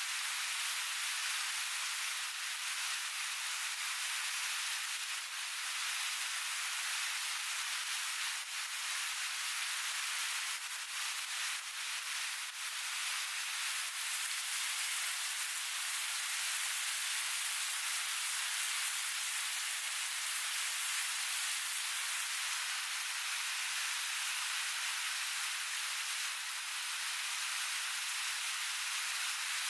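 River rapids rushing over rocks: a steady, even hiss of white water, with a few faint ticks over it.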